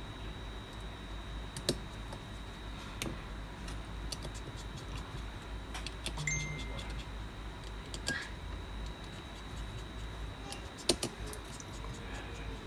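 Light metallic clicks and taps from a precision screwdriver working screws and small metal brackets out of an opened iPhone 7, with a few sharper clicks, the loudest near the end. A steady faint hum runs underneath.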